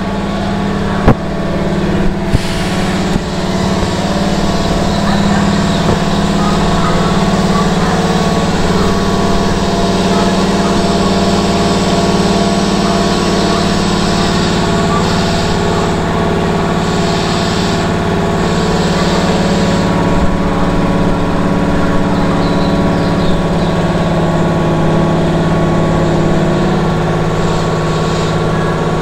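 Keihan 1000 series electric train's underfloor air compressor running with a steady low hum while the train stands still. A couple of sharp clicks come about one and two seconds in.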